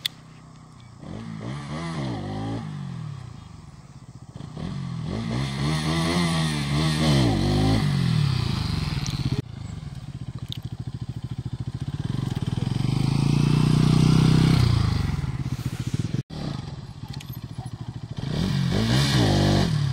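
Bajaj Pulsar NS200's single-cylinder engine revving up and dropping back several times, the longest and loudest rise about two-thirds of the way through.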